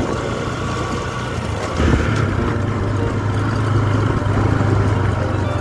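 Motorcycle engine running steadily while riding. About two seconds in, the sound changes abruptly to a louder, steadier engine hum.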